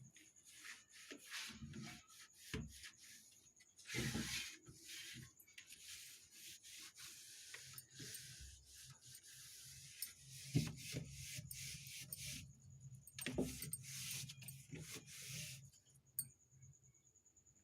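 Cloth wiping the plastic inside of a refrigerator with plain water: faint, irregular rubbing strokes with a few light knocks. The sound stops a second or two before the end.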